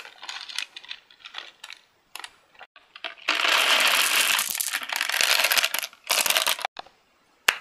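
Lemonhead hard candies poured from their cardboard box into a metal-framed clutch purse: light handling clicks at first, then a dense rattle of many small candies for about two and a half seconds, a shorter pour right after, and one sharp click near the end.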